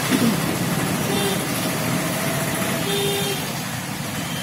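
Road traffic noise heard from a moving two-wheeler: a steady rush of engines, tyres and wind, with brief horn toots about a second in and again around three seconds in.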